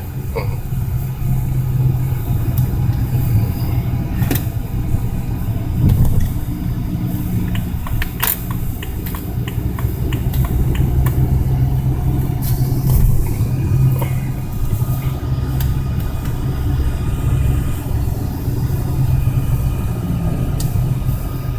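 BMW 335d's twin-turbo straight-six diesel running steadily while the car drives, heard from inside the cabin as a low hum with road rumble. A few short sharp clicks stand out over it.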